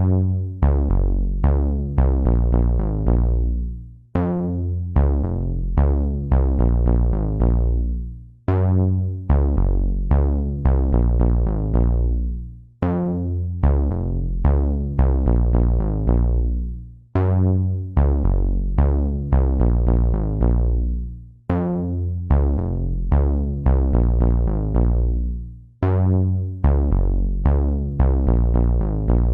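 Electronic background music: struck synthesizer notes over a heavy bass, in a phrase that repeats about every four seconds.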